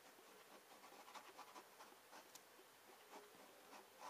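Faint scratching of a pen on notebook paper: many short, quick, irregular drawing strokes.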